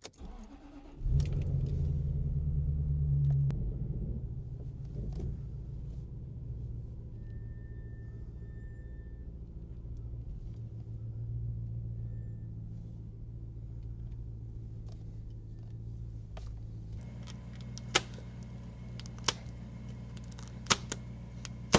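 An engine starts about a second in, runs faster for a couple of seconds, then settles to a steady idle; a few sharp clicks near the end.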